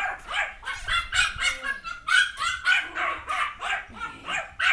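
Young Yorkshire terrier barking over and over, about three to four short, high-pitched barks a second without a break, aimed at a treat held above it.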